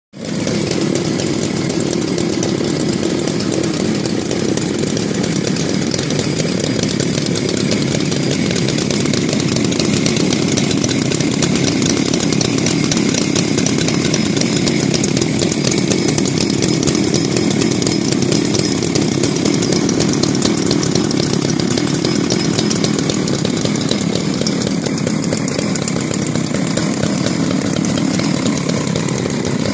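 Vintage Solo two-stroke chainsaw running steadily at an even speed.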